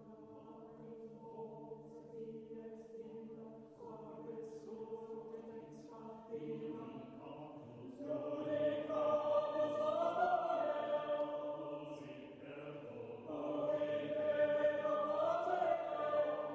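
Background music of slow, sustained choral chanting over a drone, swelling louder about halfway through and again near the end.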